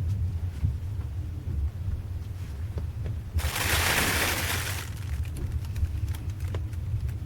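Passenger train running, heard from inside the carriage: a steady low rumble with light clicks, and a loud hiss lasting about a second and a half about three and a half seconds in.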